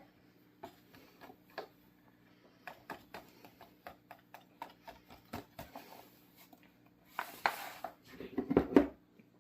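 Light, irregular taps and clicks of kitchen utensils against a bowl while flour is measured out. About seven seconds in there is a brief rustling pour, and a few louder knocks come near the end.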